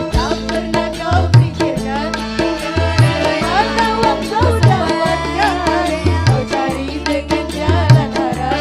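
Live dangdut koplo band music: a woman singing over a steady rhythm of kendang hand drums and a bass line.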